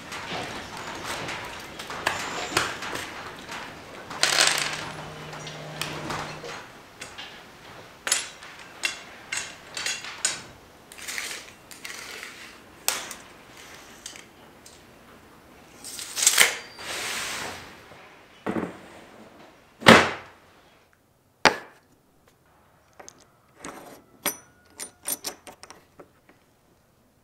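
Hands-on assembly of an aluminium-extrusion CNC frame: rustling of small plastic hardware bags, clinks of screws and metal parts, and knocks of parts set down on a wooden bench, with one loud knock about two-thirds of the way through. Near the end come a few light metallic clicks.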